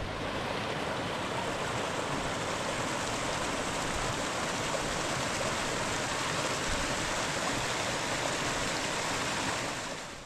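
Steady rushing of a mountain stream's water, fading out near the end.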